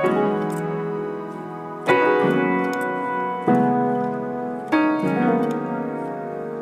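Background music: slow, sustained chords struck about every one and a half seconds, each left to ring and fade.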